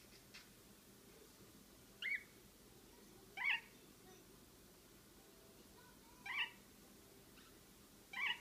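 Lineolated parakeet giving four short chirps, spaced a couple of seconds apart.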